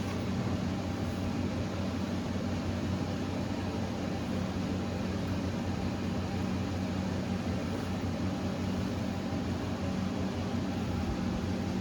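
Steady mechanical hum with an even hiss, unchanging throughout, like a running fan or appliance motor.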